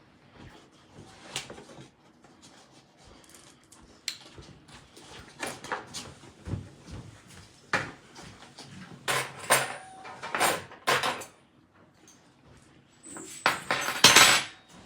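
Kitchen clatter: scattered knocks and clicks of dishes and cupboard doors being handled, growing busier partway through, with a louder noisy burst near the end.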